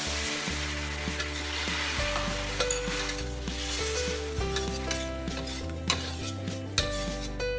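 Cubes of pork sizzling as they hit a hot steel wok of dark soy sauce, then being stirred and turned with a spatula to brown. The sizzle is loudest in the first couple of seconds, with a couple of sharp spatula knocks against the wok near the end.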